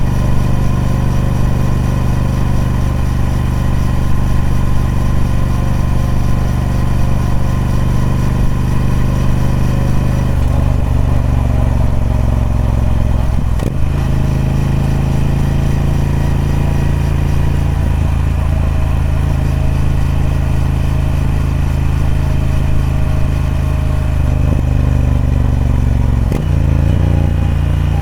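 Triumph Speed Twin 1200's parallel-twin engine running through its stock exhaust while under way, a steady note that shifts pitch about ten seconds in, again with a brief break about halfway, and once more near the end.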